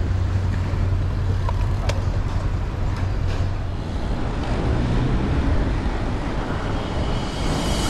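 Road traffic noise: cars and a motorcycle running past, a steady mix of engine and tyre noise with a low hum. The sound shifts about four seconds in.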